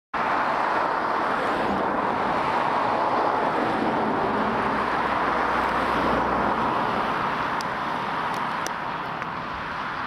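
Fendt tractor ploughing with a six-furrow Kverneland reversible plough: a steady drone of the engine working under load, easing off somewhat over the last few seconds.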